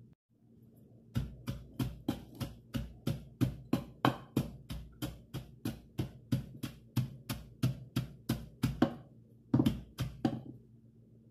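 Wooden pestle pounding in a large clay mortar: a steady run of dull thuds, about three a second, starting about a second in and stopping shortly before the end.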